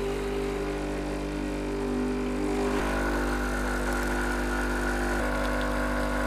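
Sage Bambino Plus espresso machine's vibratory pump running steady and loud while pulling a shot of espresso. Its hum changes tone about three seconds in.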